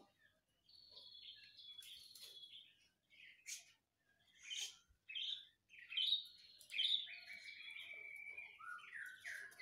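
Young male white-rumped shama singing: a run of varied whistled and chattering phrases broken by short pauses, louder in the second half.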